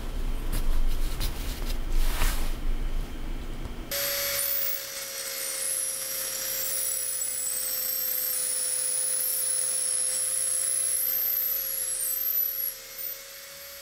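Makita XPH12 18 V cordless hammer driver-drill running at a steady speed, its motor whine holding one pitch, while a twist bit bores into the edge of a wooden board with scratchy squeaks of the bit cutting wood. For about the first four seconds before it starts there is rubbing and knocking of wood being handled, and the drilling gets quieter near the end.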